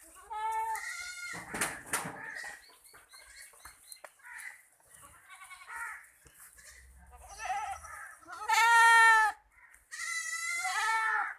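Goats bleating: several bleats, the loudest about eight and a half seconds in and a quavering one near the end. There is also a short burst of noise about two seconds in.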